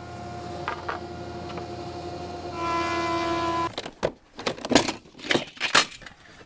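Thickness planer running with a steady whine, louder for about a second before it cuts off just past the middle. Then a string of sharp knocks and scrapes as the dust cyclone's plastic lid is worked loose on its chip-collection drum.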